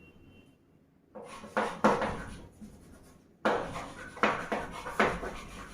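A series of light knocks and clatters, about six or seven irregular sharp hits with short decays, starting about a second in.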